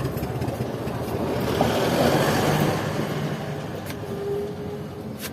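A motor vehicle passing, its engine and tyre noise swelling to a peak about two seconds in and then fading away.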